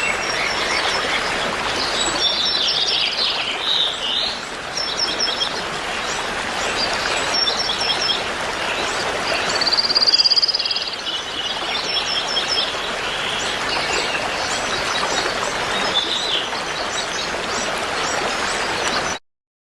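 Songbirds chirping and trilling over a steady rush of flowing water, cutting off suddenly just before the end.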